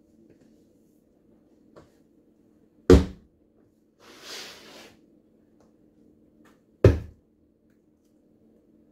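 Two heavy thuds of a sneakered foot landing on a wooden floor and on a whole pumpkin, about four seconds apart, with a short scuffing hiss between them. There is no crunch or splat: the pumpkin stays whole.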